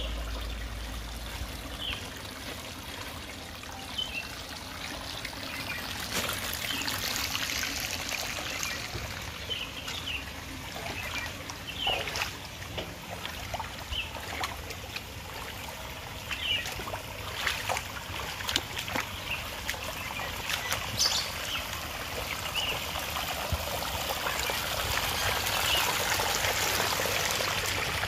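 Water trickling and running over stones and pebbles in a shallow artificial stream, a steady splashing flow that grows fuller after the first few seconds.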